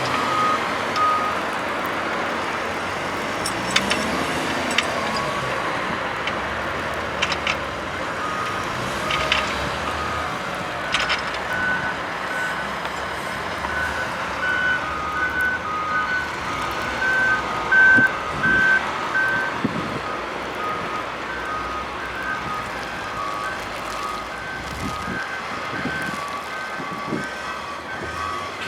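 Heavy diesel machinery running with reverse alarms beeping, about one beep a second. The beeping is brief at the start and resumes about eight seconds in, with two alarms at slightly different pitches. A few sharp knocks and clanks sound over the engine noise.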